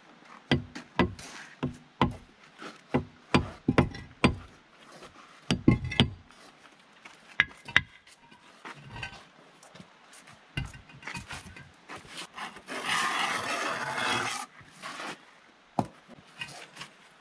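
A hammer knocking on a concrete block to tap it down level, with a quick run of sharp knocks over the first six seconds and a few more shortly after. Past the middle comes a scraping noise lasting about a second and a half.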